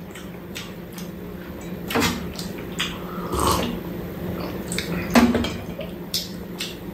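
Close-up eating sounds: chewing on a burrito, with a sip from a mug about halfway through and a few sharp clicks and knocks, over a steady low hum.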